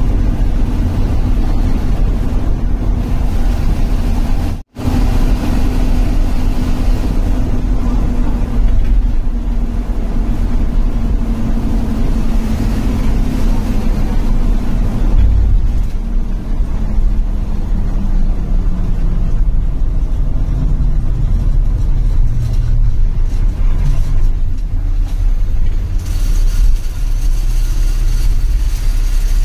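Bus diesel engine and road noise heard from inside the driver's cabin. The engine note holds steady, then falls gradually over several seconds as the bus slows down. The sound drops out briefly about five seconds in, and there is a short hiss near the end.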